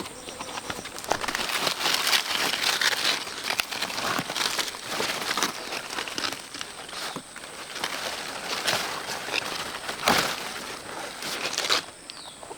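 Irregular rustling and crackling with many small clicks, swelling louder at times, like leaves or plant material being handled. A thin, steady high-pitched tone runs underneath.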